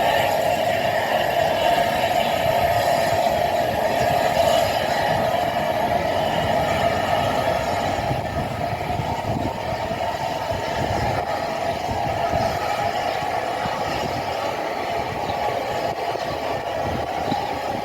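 A heritage passenger train running along the line: a steady rumble and rattle of wheels on rail, with a constant hum, easing a little in the last few seconds.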